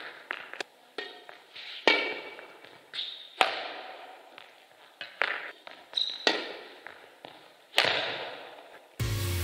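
Badminton racket striking a shuttlecock several times, each sharp crack echoing through a large sports hall, the hardest hits about two, three and a half and eight seconds in, with lighter knocks and steps between. Background music comes in near the end.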